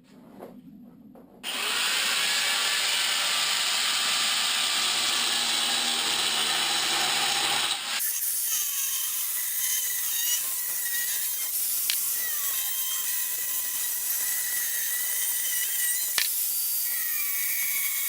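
Power tool cutting 3/16-inch steel plate, running steadily. About 8 s in the sound changes abruptly to a second cut, where the tool's whine dips and wanders in pitch as it loads up in the metal, with a few sharp clicks.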